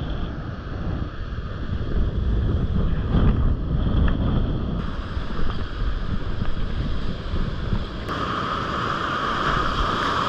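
Wind buffeting the microphone over breaking surf and churning whitewater. The sound shifts abruptly twice, about five and eight seconds in, and is steadier near the end.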